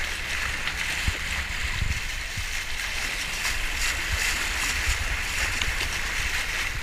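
Sea water rushing and splashing along the bow of a sailing catamaran under way, a steady hiss with low rumbling underneath.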